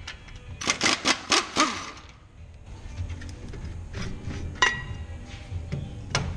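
Metal clinks and rattles of a truck's rear brake caliper being worked off its mount and handled: a quick run of about five sharp rattles about a second in, then lighter scattered clinks, with a sharp clack about two-thirds of the way through.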